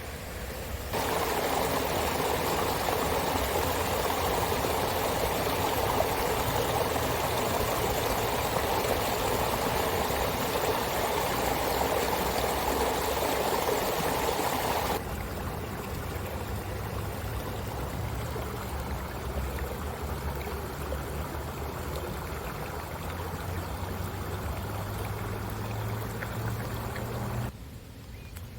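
Water rushing steadily, as from a small stream or cascade. About halfway through it drops abruptly to a quieter, duller rush.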